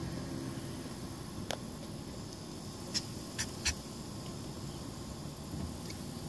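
Domestic turkeys, a flock with strutting toms, giving a few brief squeaky calls, about four, the first about a second and a half in and three more close together in the middle, over a faint low rumble.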